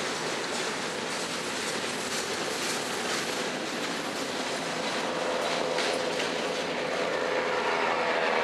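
CSX freight train of empty open-top cars rolling past, its wheels clicking over rail joints over a steady rumble. About five seconds in, a pitched wheel squeal joins and the sound grows a little louder.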